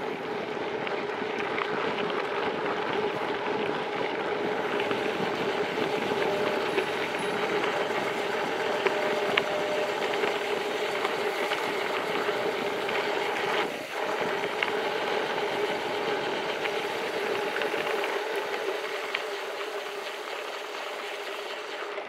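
Gravel bike tyres running fast down a dirt road, a steady rumbling rush with scattered sharp ticks of stones and rattle, dipping briefly about two-thirds of the way through.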